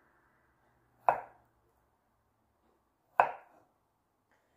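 Kitchen knife cutting through a raw potato on a wooden cutting board: two sharp knocks of the blade hitting the board, about two seconds apart.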